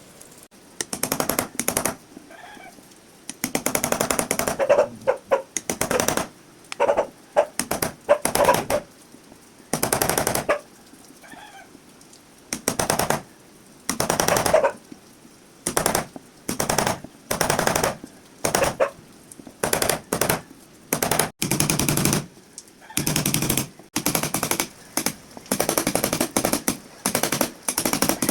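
A power drill/driver run in many short bursts, each a second or less, with a rapid rattle, as holes are drilled and screws are driven while a rim lock is fitted to a wooden door.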